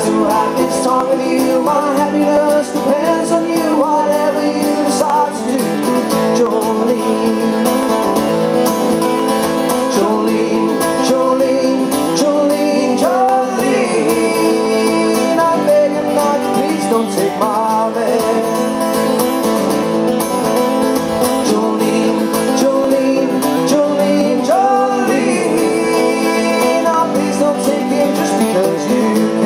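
Live acoustic folk duo: two acoustic guitars playing together with a man singing into a microphone.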